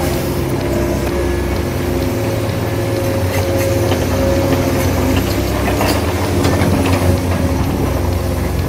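Small electric winch motor and gearing of an RC crane running steadily as it hoists a load, a low hum with a few held whining tones and occasional faint clicks.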